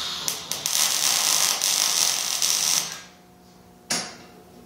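Electric arc welder tack-welding a steel frame: the arc crackles for about three seconds after a few stuttering starts, then strikes again briefly about four seconds in. A steady hum runs underneath.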